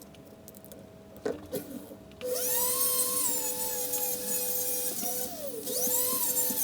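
A few light clicks, then about two seconds in the Vevor 780W flex shaft grinder spins up into a high whine, its pitch rising and dipping as the pedal-controlled speed varies, with the bit running on the wood.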